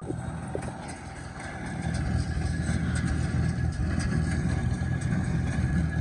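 Farmall H tractor's four-cylinder gasoline engine running steadily under load as it pulls a New Holland Hayliner 69 square baler through a hay windrow. It gets louder about two seconds in.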